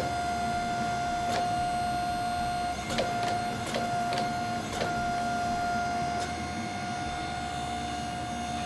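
25-ton hydraulic forging press running with a steady high whine from its pump while it squeezes a red-hot canister billet, with a few sharp clicks.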